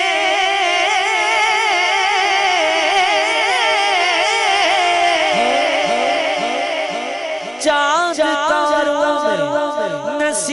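A man singing a naat unaccompanied into a microphone: a long, ornamented wordless melisma of held, wavering notes, sliding down in falling glides after the midpoint, with a new phrase starting sharply about two-thirds of the way through.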